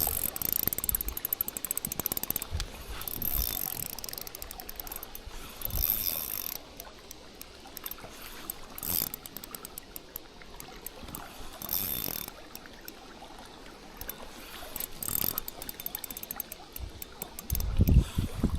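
Spinning reel clicking in runs of fast ticks as line is wound in. Wind buffets the microphone near the end.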